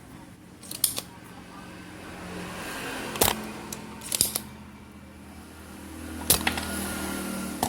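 Sharp clicks and taps of tools and small parts being handled during a capacitor replacement on a CRT TV circuit board, about five times, over a low steady hum.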